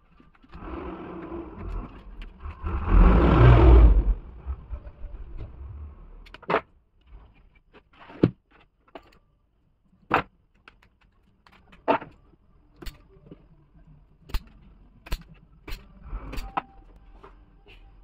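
Insulated hookup wires dragged through the back of a wiring board: a scraping rustle with a low rumble, loudest for about a second near the four-second mark. After that come about ten separate sharp clicks and snaps from hand tools working the wire ends.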